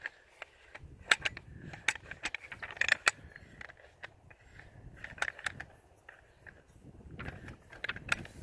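Scattered light clicks, knocks and rustling from a rifle being handled, its suppressor being screwed onto the muzzle.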